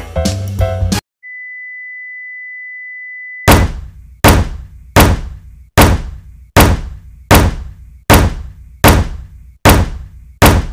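Title-animation sound effects. Music cuts off about a second in, followed by a steady high beep for about two seconds, then a run of ten heavy thunks, roughly one every three-quarters of a second.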